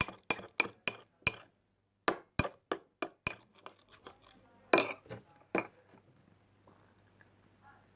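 A spoon clinking against the side of a bowl while stirring glue that has just had borax water added to it, as the slime starts to form. There is a quick run of taps about four a second, a short pause, another run, then a few scattered knocks, and the sound dies away for the last two seconds.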